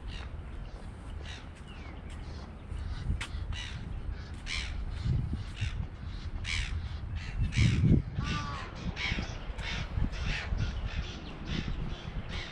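Birds giving harsh, crow-like calls over and over, several overlapping throughout, above a steady low rumble. A dull low thump about two-thirds of the way in is the loudest moment.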